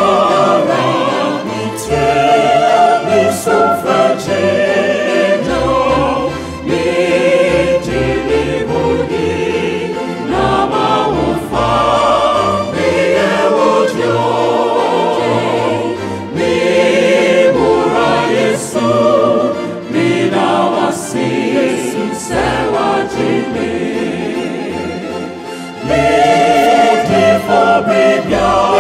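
Mixed choir of sopranos, altos, tenors and basses singing a devotional choral song in parts through microphones, with electronic keyboard accompaniment. The sound softens about two-thirds of the way through and swells again near the end.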